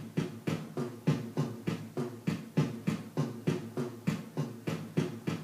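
Practice music for a dance class, with a fast, steady drumbeat of about three beats a second.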